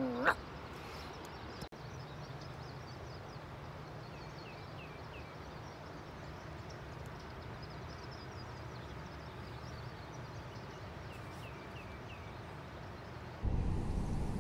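Steady outdoor background noise with a low hum, and small birds chirping in short quick series now and then. Near the end the low background noise suddenly gets louder.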